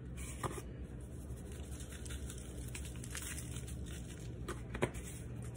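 Plastic spice shakers being handled and shaken over raw chicken: a few faint clicks and taps over a low steady hum, the loudest click near the end.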